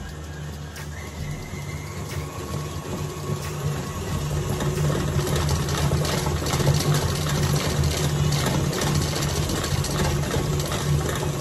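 Electric stand mixer running, its paddle beating butter in a stainless steel bowl: a steady motor hum that grows louder over the first few seconds, then holds.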